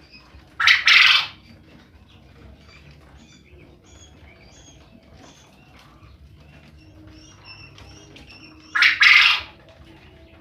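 Male quail crowing twice, each a short, loud, harsh call in two quick parts, about eight seconds apart, with faint chirping between.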